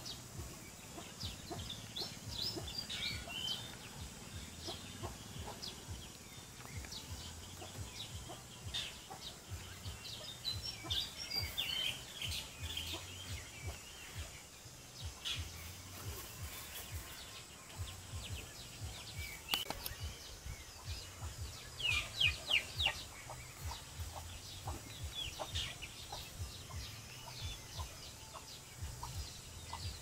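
Chickens clucking in short, scattered calls mixed with small birds chirping, the loudest run of calls about three quarters of the way through, over a low steady rumble.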